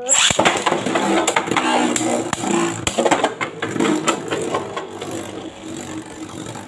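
Two Beyblade Burst spinning tops launched into a plastic stadium, whirring and clattering with many sharp clicks as they strike each other and the stadium wall. The noise starts suddenly and fades gradually as the tops slow.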